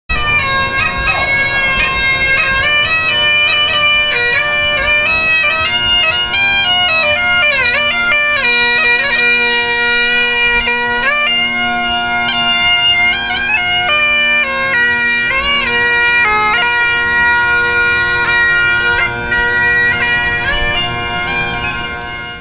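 Bagpipes playing a tune: a melody on the chanter over steady, unbroken drones.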